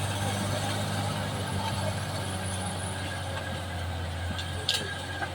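Caterpillar D6R XL bulldozer's diesel engine running steadily with a low hum, with a brief sharp high sound near the end.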